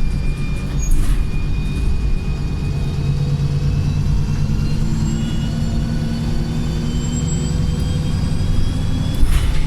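Wright Pulsar single-deck bus under way, heard on board: a low engine rumble under several high whines from the gearbox and differential that rise gently in pitch. Two sharp knocks come about a second in and near the end.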